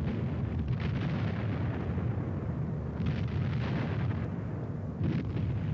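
A string of bombs exploding: a continuous low rumble of blasts, with sharper cracks standing out several times.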